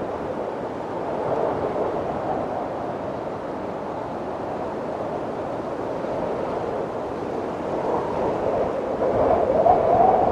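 Wind blowing through a bamboo forest in slow gusts, swelling louder near the end.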